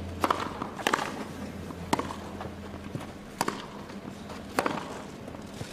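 Tennis rally on a grass court: a string of sharp racket-on-ball hits and ball bounces, roughly one every second.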